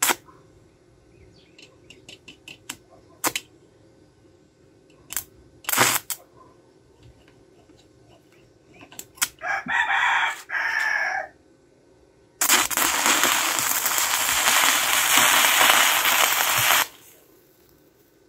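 Stick-welding arc: a few short crackling strikes as the electrode is touched to a metal pipe, then a steady crackling arc held for about four seconds from roughly twelve seconds in. A rooster crows once about ten seconds in.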